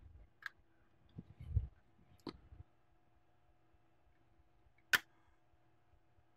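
A few faint clicks and a soft low bump as a graphics card's circuit board is handled and seated onto a full-cover water block, with the sharpest click about five seconds in.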